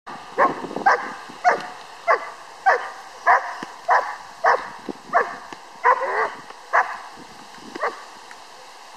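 Six-month-old German Shepherd puppy barking at a decoy in bite-work training: about a dozen sharp barks in quick succession, each dropping in pitch, stopping shortly before the end.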